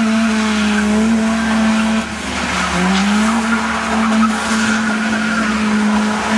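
A car engine is held at high revs while the car spins doughnuts, its driven tyres spinning and skidding on the loose dirt. About two seconds in, the revs drop briefly, then climb back up and hold steady.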